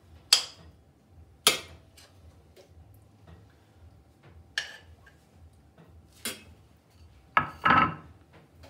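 A metal spoon clinking and scraping against a stainless sauté pan and a ceramic bowl as stewed broad beans are served out: sharp clinks every second or so, with a close pair of louder clatters near the end.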